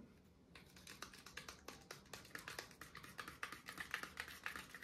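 A small spatula stirring acrylic wall paint in a plastic cup, mixing in freshly added drops of green colorant. It makes a faint, fast run of clicks and scrapes against the cup, starting about half a second in.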